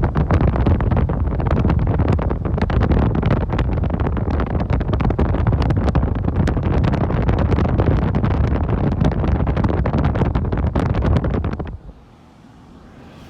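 Heavy wind buffeting the microphone, a loud gusty rumble that drops away suddenly about twelve seconds in.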